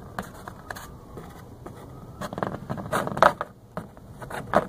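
Small parts handled by hand: irregular scratching, scraping and clicking, busiest a couple of seconds in, with a sharp click near the end.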